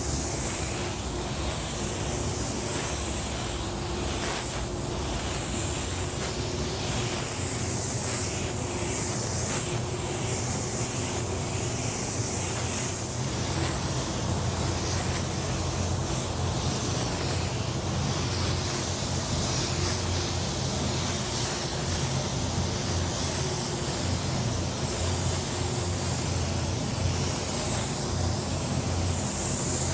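Gravity-feed spray gun hissing as it sprays black water-based paint in passes, the air hiss varying in strength as it goes. Under it runs the steady low hum of the paint booth's fans.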